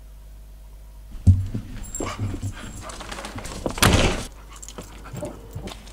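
A spaniel stirring excitedly at the offer of a walk: a sudden thump about a second in, then scuffling and short dog sounds, with a louder rush of noise near four seconds as a door handle is worked.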